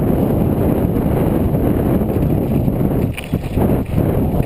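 Wind buffeting the microphone of a bike-mounted camera while riding along a gravel track, a steady rough rumble that eases briefly a little after three seconds in.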